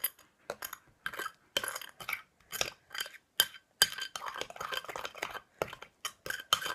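Metal spoon scraping and clinking against a glass bowl in short, irregular strokes, about two a second, as it stirs and mashes kinetic sand into glue slime.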